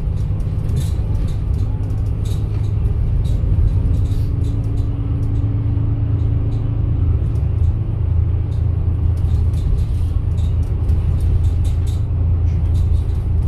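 Double-decker bus's engine and drivetrain running at road speed, heard inside the upper deck: a steady low rumble with scattered light ticks and rattles.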